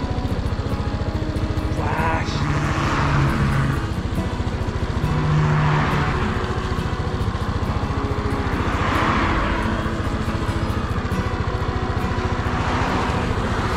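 Road traffic passing close by, four vehicles one after another, each swelling and fading, over a steady low engine rumble.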